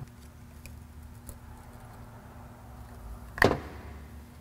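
A few faint metal clicks, then one sharp click about three and a half seconds in, as a small screwdriver pries a valve off a carburetor body.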